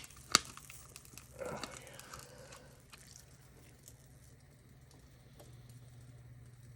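3D-printed support material being pried and snapped off a print softened in hot water: one sharp snap about a third of a second in, a short crackle of tearing plastic around a second and a half, then quieter small ticks over a low steady hum.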